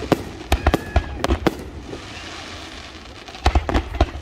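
Fireworks display: a quick run of sharp bangs over the first second and a half, a lull, then another cluster of bangs about three and a half seconds in.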